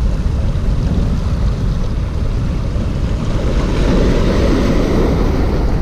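Wind buffeting the microphone: a steady, loud rumble, a little brighter about halfway through.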